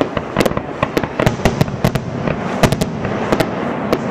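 Aerial fireworks finale: a rapid, irregular string of loud bangs, about five a second, one running into the next.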